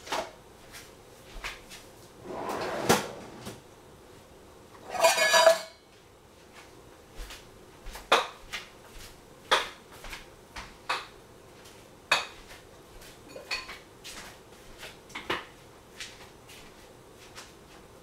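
Irregular clinks and taps of metal pots and glass jars on a stovetop. A short scraping rattle comes about two and a half seconds in, and a louder ringing rattle about five seconds in, followed by scattered sharp clicks.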